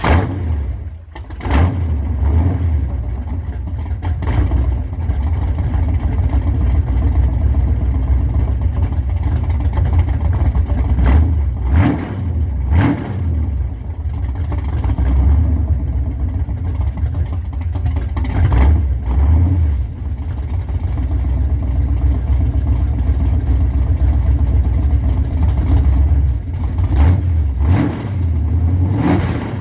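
Chevrolet 383 stroker small-block V8 running on open long-tube headers from a cold start, idling loudly with several short throttle blips.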